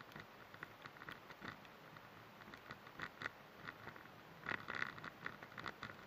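Raindrops pattering irregularly on a velomobile's shell, sharp scattered ticks over a steady faint hiss, bunching into a denser spatter near the end.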